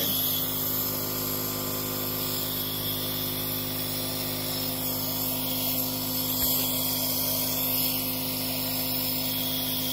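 Nebulizer running: the air compressor hums steadily while air hisses through the nebulizer cup, misting liquid medicine for inhalation.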